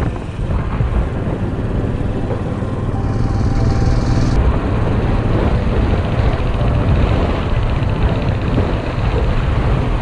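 Motorcycle engine running steadily while riding on the road, with wind noise on the helmet-mounted microphone.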